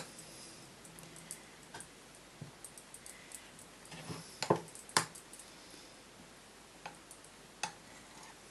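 Metal spoon clinking and scraping against glass and ceramic bowls while smoothing thick grape-must pudding. A few sharp clinks, the loudest two about half a second apart near the middle, and fainter taps near the end.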